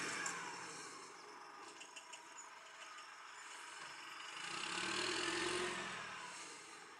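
Roadrunner hay squeeze's engine running as the machine drives. It fades early on, with a few light clicks around two seconds in, then swells to its loudest about five seconds in and fades again.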